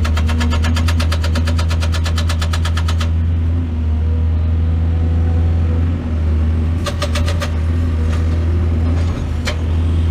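Excavator's diesel engine running with a steady low drone. A fast, even clicking runs over it for about the first three seconds and again briefly around seven seconds in.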